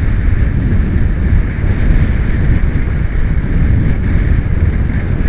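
Loud, steady wind rumble on the built-in microphone of a Drift HD action camera on a moving Yamaha motorcycle, recorded without an external microphone.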